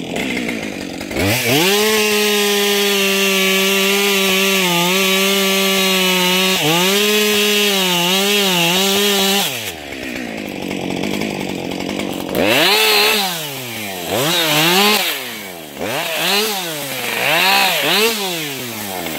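Husqvarna 550 XPG two-stroke chainsaw revving up from idle about a second in and holding full throttle through a cut for about eight seconds, the pitch dipping a little as the chain bites, then dropping back to idle. In the last seven seconds it is revved up and let down in several short bursts while cutting branches.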